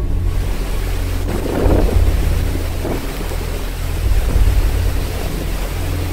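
Storm wind rumbling on the microphone over the rush of rough sea and spray along a ship's side, swelling louder twice.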